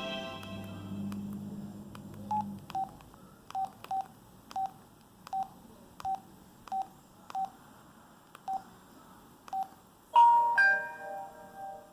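LG Helix UX310 cell phone through its loudspeaker. A ringtone's last notes fade out, then about a dozen short, high keypad beeps come at uneven intervals as the ringtone list is stepped through. A new preloaded ringtone melody starts loudly about ten seconds in.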